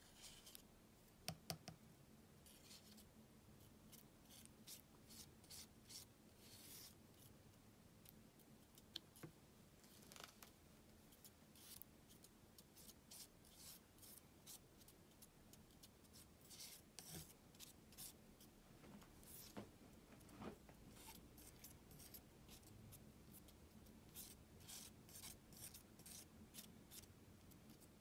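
Plastic palette knife scraping and smearing thick acrylic paint across a smooth surface in faint, irregular strokes, with a couple of light clicks about a second and a half in.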